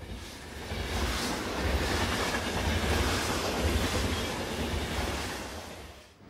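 Train passing by: a heavy rumble and wheel-on-rail noise swell up over about a second, hold, then fade away, and the sound cuts off abruptly near the end.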